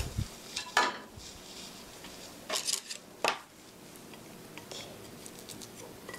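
Wooden chopsticks clacking and tapping against a ceramic rice bowl as a fried egg is tucked down over the rice: a few sharp clacks, one about a second in and two more near the middle, with softer small ticks between.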